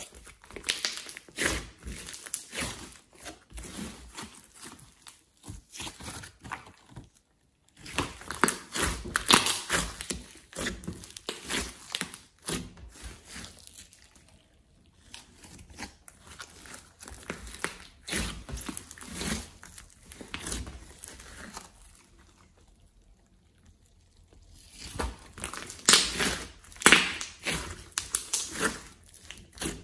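Large mass of glossy slime, mixed with clay and glitter, being kneaded, squeezed and stretched by hand: dense runs of small sticky clicks and crackles in bursts of several seconds, with a few short quiet pauses between handlings.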